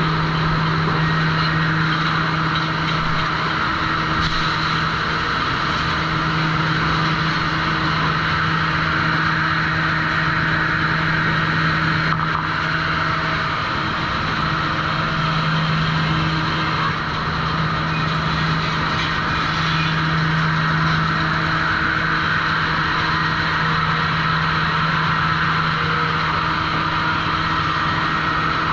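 Sawmill machinery at a trim saw running steadily: a constant low hum with a loud hiss over it, and no distinct cuts standing out.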